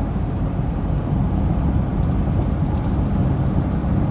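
2015 Lincoln Navigator's 3.5-litre EcoBoost twin-turbo V6 running rough with a low, uneven rumble. The sound is the sign of a misfire that leaves the vehicle vibrating like crazy.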